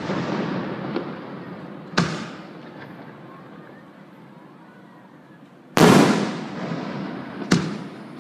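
Aerial firework shells bursting overhead: four booms, one at the start, one about two seconds in, the loudest about six seconds in, and a sharper crack a moment after it, each trailing off slowly.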